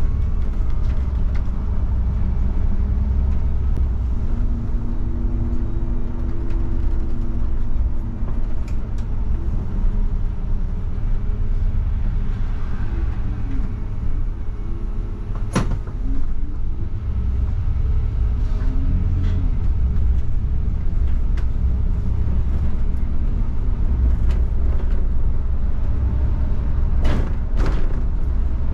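A Mercedes-Benz Citaro CNG city bus, with its natural-gas engine, driving with a steady low rumble of engine and road. Around the middle the engine note falls as the bus slows, then rises as it pulls away again. A sharp knock comes about halfway through and two more near the end.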